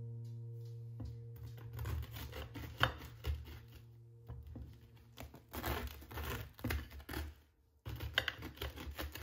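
Knife sawing through the crust of a baked bread loaf, a run of crackly, crunching strokes with a short pause near the end.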